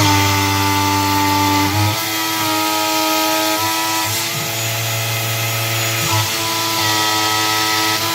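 PM-25 CNC milling machine cutting with a 3/8-inch three-flute carbide end mill, half an inch deep and a narrow 0.04 inch wide at 75 inches per minute: a steady machine whine whose tones shift in steps every two seconds or so as the cut goes on.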